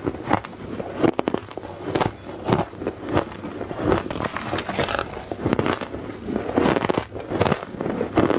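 Soft ice being bitten into close to the microphone: a steady run of crisp crunches, roughly one every half second.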